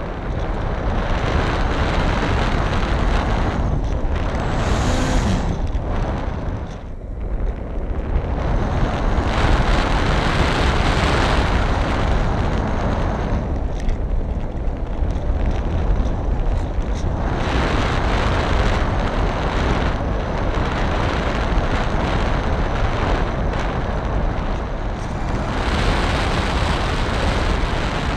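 Wind buffeting the onboard camera microphone of an FPV model aircraft in flight: a loud, rough rushing rumble with no clear tone, dipping briefly about seven seconds in.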